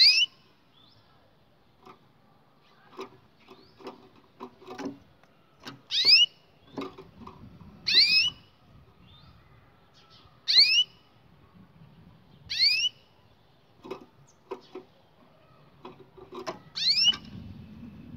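Canary giving short, rising call notes, about six in all and two to four seconds apart, each a quick upward sweep, with fainter ticks between.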